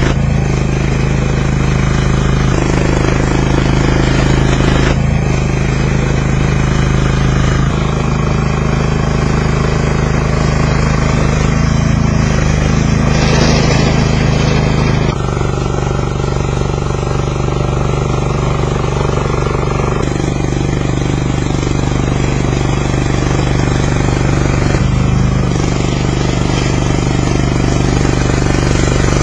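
The motor of a hand-made mini bulldozer model running steadily, its tone shifting in steps every few seconds as it works.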